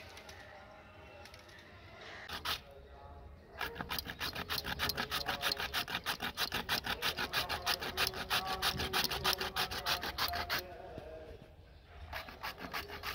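White radish (mooli) rubbed quickly up and down a hand-held grater, a fast, even rasping of several strokes a second. The strokes begin a few seconds in, pause briefly near the end, then start again.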